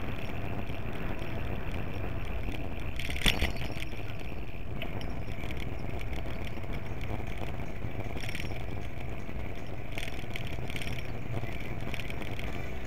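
Steady rolling and wind noise of a bicycle riding along a paved path, picked up by an action camera mounted on the bike. About three seconds in there is a sharp knock, then a smaller one.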